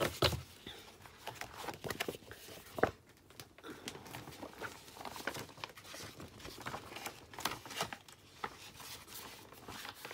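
Paper rustling as sheets of patterned paper and a catalogue are handled and set down, with a sharp tap about three seconds in.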